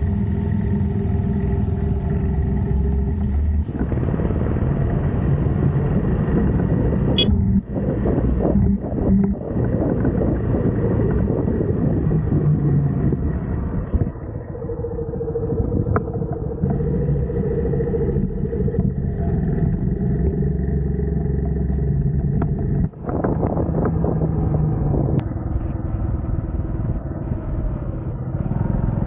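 TVS XL100 moped's small single-cylinder four-stroke engine running, its pitch shifting up and down every few seconds, with stretches of rushing noise over it.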